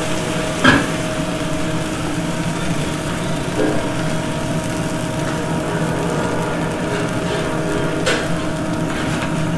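Steady running noise of a commercial kitchen's lit gas range burners and exhaust hood fan, with a constant hum under it. There are two short sharp knocks, one near the start and one near the end.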